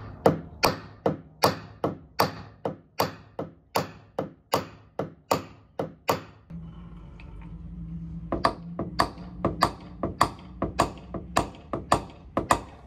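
A hammer striking a metal tap-down tool against the steel quarter panel of a classic Ford Thunderbird, about three sharp taps a second, tapping down the crown of a dent wave from outside the panel. About halfway in the tapping stops briefly, then resumes over a low steady hum.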